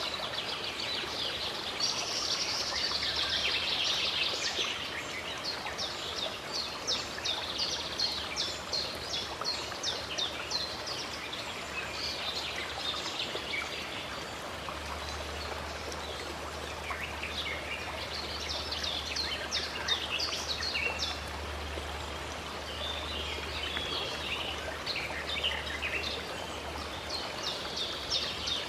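Running water flowing steadily, with birds singing over it in runs of quick, high chirps and trills.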